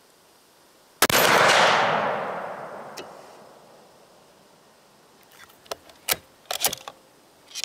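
A single shot from a Savage 220 20-gauge bolt-action slug gun firing a Remington Premier AccuTip sabot slug, about a second in, its report rolling away over about three seconds. A few sharp clicks follow a few seconds later.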